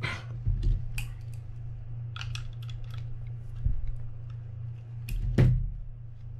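Small clicks and taps as a partly disassembled Penn Spinfisher 5500SSV spinning reel and a small screwdriver are handled, with a louder knock about five seconds in, over a steady low hum.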